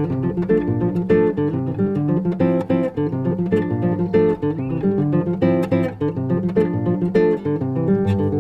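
Acoustic guitar playing an instrumental passage of strummed chords and plucked notes in an MPB song, with no singing.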